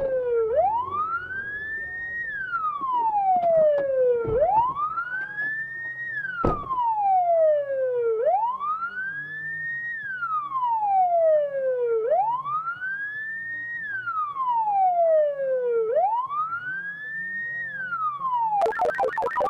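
Police car siren on a wail: each cycle rises quickly, then falls slowly, repeating about every four seconds. Near the end it switches to a rapid warble.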